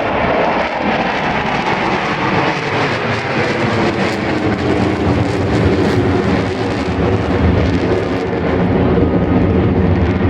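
Jet aircraft flying past at an air show: loud, continuous engine noise with a steady hum, growing slightly louder near the end.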